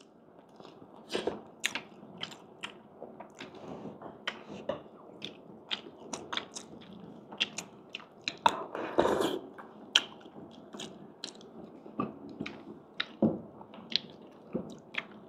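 A person chewing and biting food close to the microphone. The sound is full of sharp, irregular crunchy clicks, with a louder stretch about nine seconds in.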